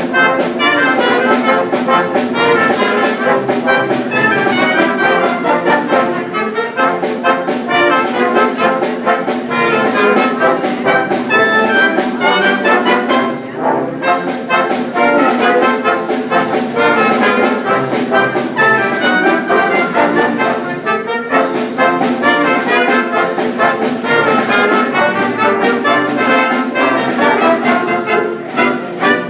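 A band led by brass, with trumpets and trombones, playing a tune, with short breaks between phrases.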